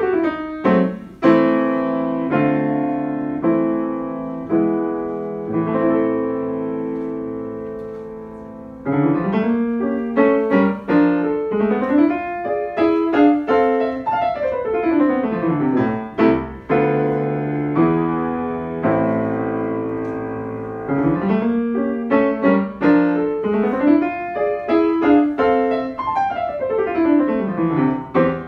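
Solo Steinway grand piano played fast: quick runs sweeping up and down the keyboard over repeated chords. A held chord dies away for a few seconds before the playing comes back loud about nine seconds in.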